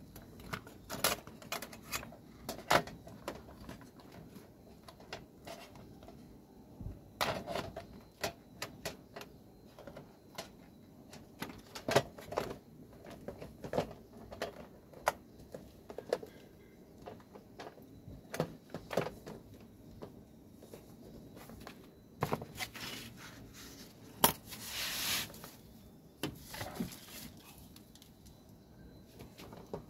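Irregular plastic clicks, knocks and rattles as the plastic housing and lid of a Panasonic IH rice cooker are handled and pressed back together, with a scrape lasting about a second near the end.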